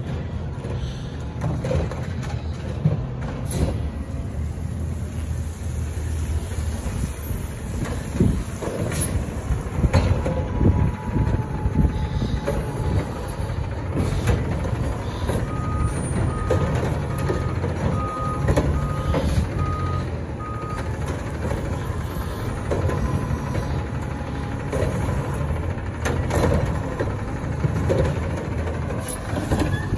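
Diesel engine of a front-loader garbage truck running steadily, with a few sharp knocks in the first half. About halfway through, its backup alarm sounds a steady series of short beeps for about five seconds.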